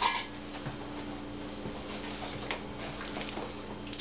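A spatula folding dressing-coated potato salad in a large stainless steel bowl: scattered soft wet squelches and light scrapes against the bowl.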